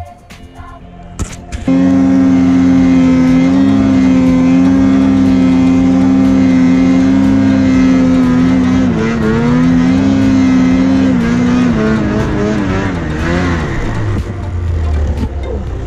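Snowmobile engine held at high revs while climbing through deep powder: a loud, steady drone that wavers slightly, then bends and drops in pitch near the end. Before it comes in, the first second or so is quieter, with a few knocks.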